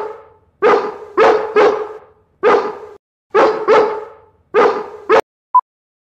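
A dog barking: about eight loud barks, singly and in quick pairs, each trailing off, cutting off abruptly about five seconds in. Then a single short electronic beep, the first tick of a film-leader countdown.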